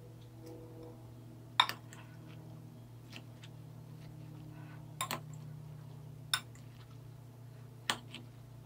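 A spoon clinking four times against a glass bowl while stirring chopped shrimp ceviche, over a steady low hum.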